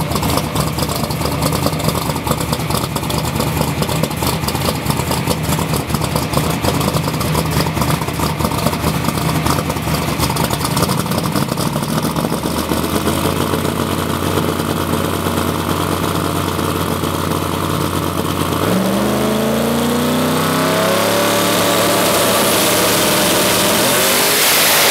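Twin-turbocharged, alcohol-injected V8 of a Pro Mod '70 Camaro drag car idling loud and lumpy. About 19 seconds in the revs jump and climb in steps, then hold high with a strong rising hiss.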